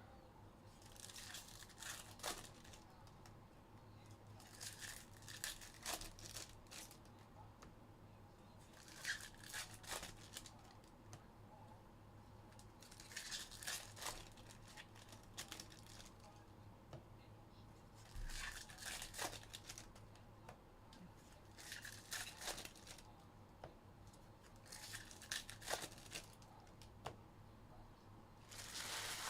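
Baseball card pack wrappers being torn open and crinkled, a short faint rip about every three to four seconds, over a low steady hum.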